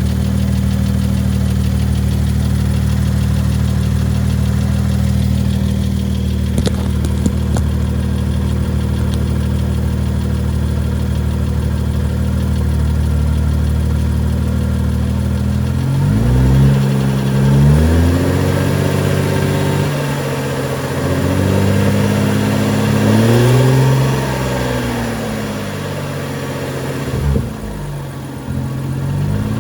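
BMW X6 xDrive35i's N55 3.0-litre turbocharged straight-six engine after a cold start, idling steadily, then revved up and let fall back four or five times from about halfway through. The owner reports an abnormal noise from it on cold start.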